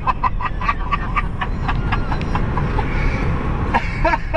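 Men laughing hard, a quick run of short bursts in the first second and a half and another burst near the end, over steady road and engine noise inside a moving car's cabin.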